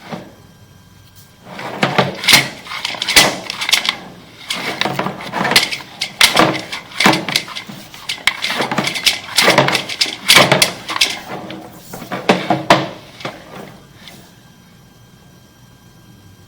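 A run of irregular hard knocks and clatters, many in quick succession, that stops about two seconds before the end.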